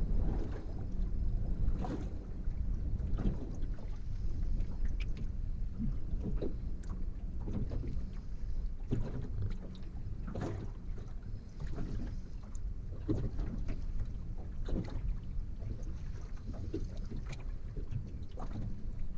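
Steady low wind rumble on the microphone with soft knocks and splashes every second or two, while a hooked fish is being played on a fishing rod.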